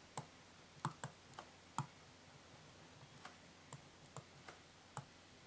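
Surface Pen's nib tapping and clicking on a Surface 3 tablet's glass screen during handwriting: about ten faint, sharp clicks at uneven intervals as the pen touches down between letters and words.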